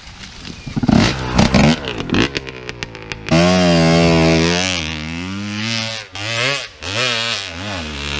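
Enduro motorcycle engine revving hard: a burst of knocks and quick revs in the first couple of seconds, then about three seconds in the engine is held at high revs before falling and rising again in several throttle blips.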